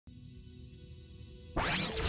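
Electronic intro music for an animated logo: a faint low hum, then about a second and a half in a loud whoosh that sweeps up and back down in pitch.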